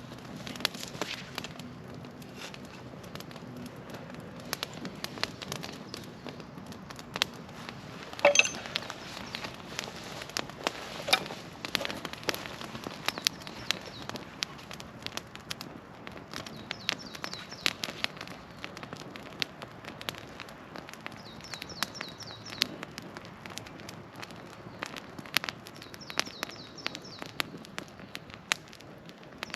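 Small fire of feather sticks and kindling crackling, with irregular sharp pops and the loudest pop about eight seconds in.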